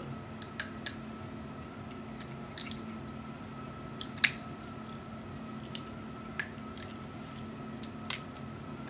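Snow crab leg shells being cracked and snapped apart by hand: scattered short, sharp cracks, the loudest about four seconds in, over a steady background hum.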